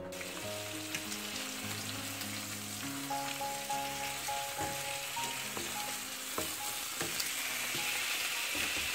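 Steady sizzle of steak frying in oil in a skillet beside a pan of tteokbokki being stirred with a wooden spoon. A few utensil clicks come about six to seven seconds in. Soft background music plays during the first six seconds.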